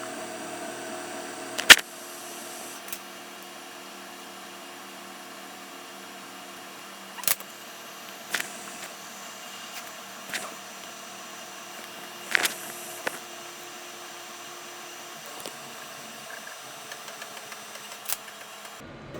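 Steady mechanical hum, like a fan, with about six sharp separate clicks spaced several seconds apart. The hum changes abruptly near the end.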